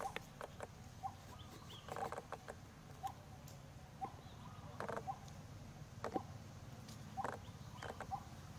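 Short squeaky animal chirps repeating about once a second, with scattered soft clicks and brief rustles.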